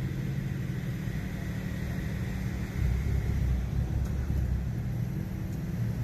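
Low, steady rumble of vehicles on the road, swelling briefly about three seconds in.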